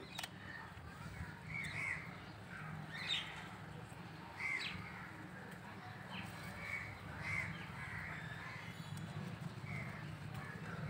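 Crows cawing, short calls repeating every second or so, over a low steady hum.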